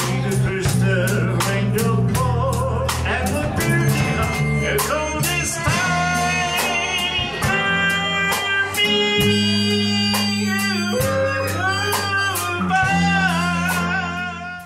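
Small live blues band playing: acoustic guitar, electric bass and drum kit, with a man singing, and a harmonica playing bending held notes in the second half. The music cuts off abruptly at the very end.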